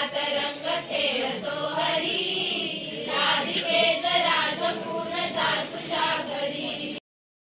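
A group of children singing a devotional song together. The singing breaks off abruptly near the end.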